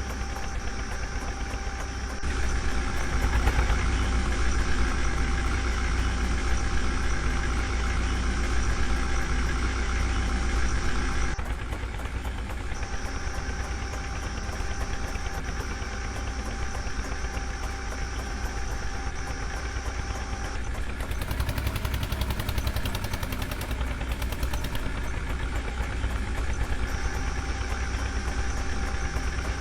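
Heavy diesel engine running steadily at a low idle-like pace. It grows louder a couple of seconds in and drops back again about eleven seconds in.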